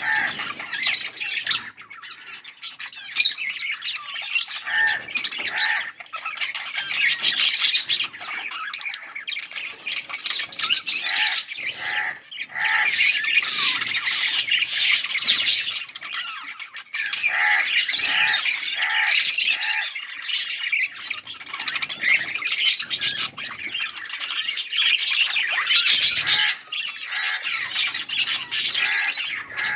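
Budgerigars chattering and chirping almost without pause, a busy warble of squawks and short chirps with brief lulls, and now and then a quick run of repeated lower notes.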